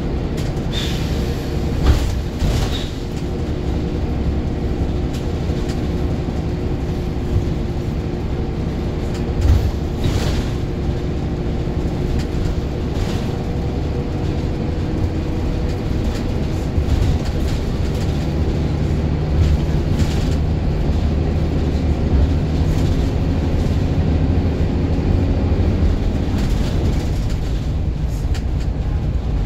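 Transdev Keighley bus 1808's engine and drivetrain running as the bus drives along, heard from inside the passenger saloon. The engine note rises and falls, with a few sharp knocks and rattles from the body.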